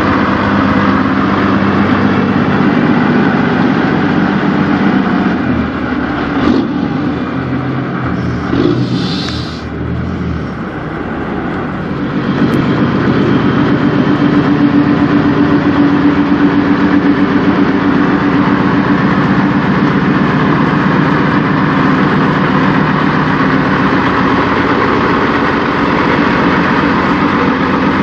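Peterbilt semi truck's diesel engine running at low speed as the truck rolls up, then settling into a steady pulsing idle. A short hiss comes about nine seconds in.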